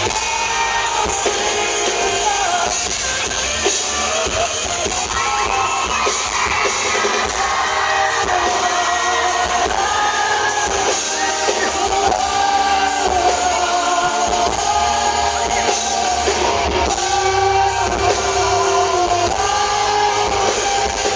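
Live rock band playing loudly: electric guitars over a drum kit, with a melodic line on top.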